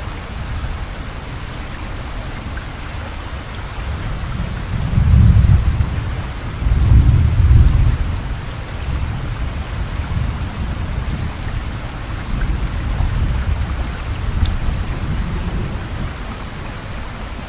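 Steady heavy rain hissing, with a low rumble of thunder building about four seconds in, peaking twice, then tapering off into fainter rumbles later on.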